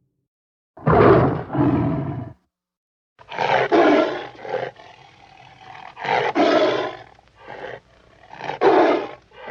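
Custom Tyrannosaurus roar sound effects: a two-part roar about a second in, then after a short pause a longer run of roars and growls broken by brief gaps.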